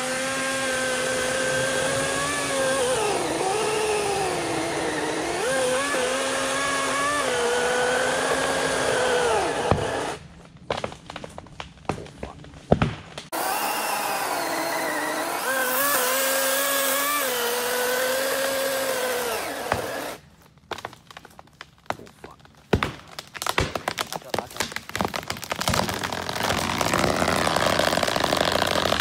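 Greenworks Commercial GS180 cordless electric chainsaw cutting into a large tree trunk, its steady whine dipping in pitch each time the chain bites. It stops about ten seconds in, a few sharp cracks follow, then it cuts again for about seven seconds. In the last seconds come more sharp cracks and a rising rush of noise.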